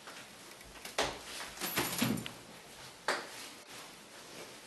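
A cat climbing and dropping down a tulle curtain: the curtain shakes and rustles in about three sudden bursts, each fading away.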